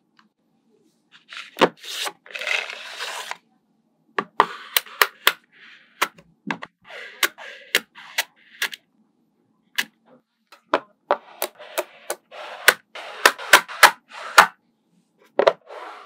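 Small magnetic balls clicking and snapping together as sheets and rows of them are handled and pressed into place, with short stretches of rattling and rubbing in between. The clicks come irregularly and are thickest near the end.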